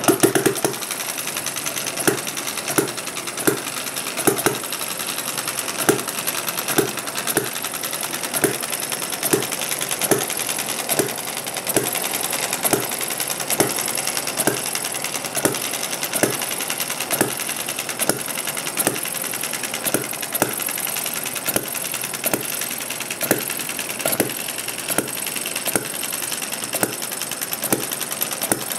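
Miniature hit-and-miss engine (David Kerzel design, 3/4-inch bore, short stroke) catching and running, with sharp firing knocks coming somewhat irregularly, one to two a second, over a steady mechanical clatter.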